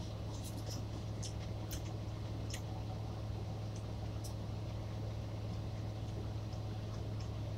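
Steady low hum inside a semi truck's cab, with faint clicks of someone chewing food during the first few seconds.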